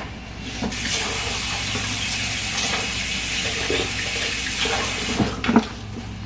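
Kitchen tap running into a sink, starting just under a second in and shut off about four seconds later, followed by a couple of sharp knocks.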